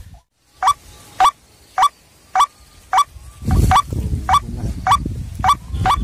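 White-breasted waterhen (ruak-ruak) calls: about ten short, harsh notes repeated at an even pace, nearly two a second. A low rumble joins about halfway through.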